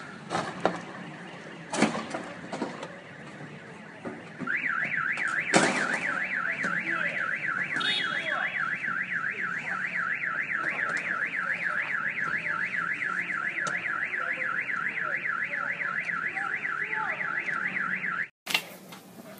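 Car alarm siren sounding a fast up-and-down warble, about four sweeps a second, starting about four seconds in and cutting off near the end. A few sharp knocks come before it.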